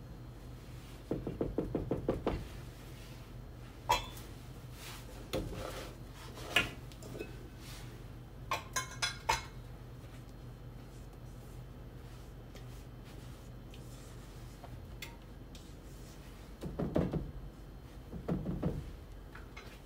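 Kitchen utensil sounds as cake batter is scraped out with a silicone spatula: quick scraping strokes near the start and again near the end, a few sharp knocks, and a quick run of metallic clinks about nine seconds in as the stainless steel mixing bowl and metal cake pans are handled.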